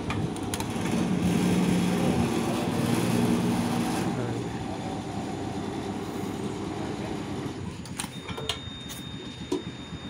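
A motor vehicle engine running amid traffic noise, loudest for the first few seconds and then settling lower, with a few sharp clicks near the end.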